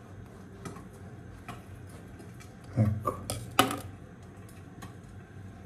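A small knife cutting a cone-shaped top out of a sponge cupcake in its paper baking cup, then the paper cup being handled as the top is lifted: faint scraping and a few light clicks and crinkles, the loudest around three seconds in.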